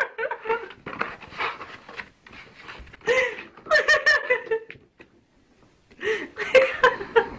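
People laughing and giggling with a little breathy murmuring, in short bursts with a brief quiet pause about two-thirds of the way through.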